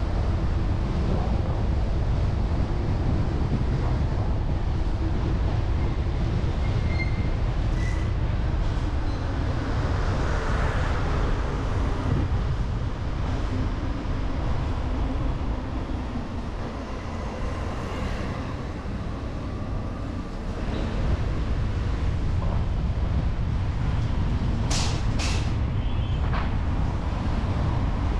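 Street traffic noise: a steady low rumble of passing vehicles, with two short sharp hisses a little over half a second apart near the end.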